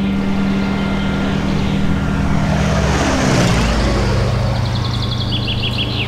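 An aircraft passing overhead: its noise swells to a peak about three seconds in and drops in pitch as it goes by.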